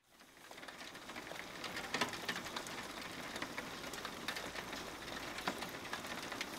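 Rain falling: a soft, steady hiss with scattered clicks of single drops, fading in over the first second or two.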